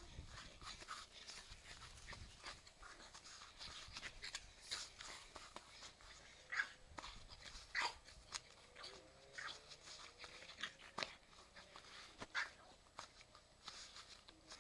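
French bulldog puppy giving short, high yaps while it plays, a string of them with several louder ones about a second and a half apart in the second half.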